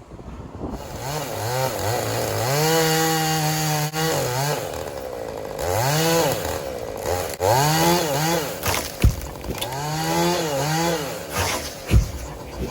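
Two-stroke chainsaw revving up and down several times, each rise held for a moment before dropping back, with a couple of sharp knocks near the end.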